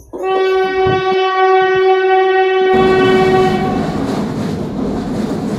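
A train's horn sounds one long, steady blast of about two and a half seconds. It then gives way to the loud rumble and rattle of the carriages running on the track.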